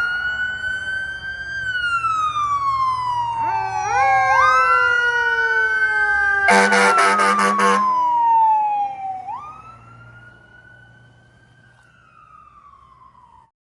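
Emergency vehicle sirens wailing, two overlapping, each rising quickly in pitch and then falling slowly, over a low vehicle rumble. About halfway through, a harsh pulsing horn blast sounds for a second or so. Afterwards one siren wails on more faintly and then cuts off abruptly near the end.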